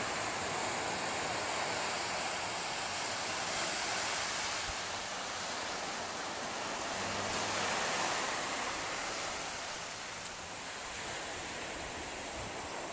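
Ocean surf breaking on the beach below, a steady rushing wash that grows a little louder about eight seconds in, mixed with wind.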